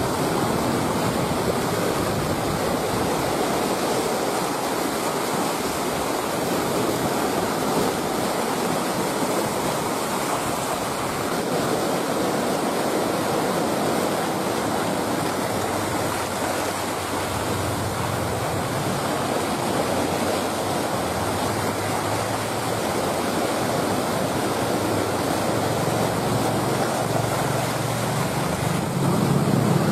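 Steady rushing of sea surf and wind on the shore. A low hum comes in past the middle and grows louder near the end.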